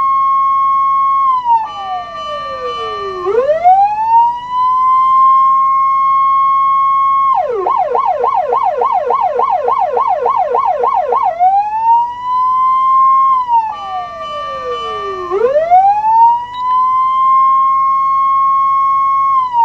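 Osaka Siren MK-9 TSK-S electronic siren, giving the same tone as the 100 W TSK-102S fire-engine siren. A wail climbs to a high held note and sinks slowly. About a third of the way in it switches to roughly four seconds of fast warbling yelp, about four sweeps a second, then goes back to the rising and falling wail.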